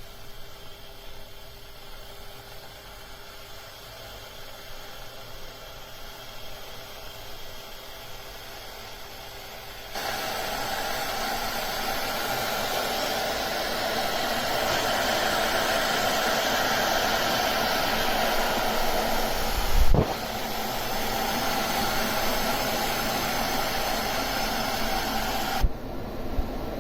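Aigostar Adam 30GOM glass electric kettle heating water. A steady hiss jumps much louder about a third of the way in as the water nears the boil, and a single thump comes later. The noise drops off suddenly near the end.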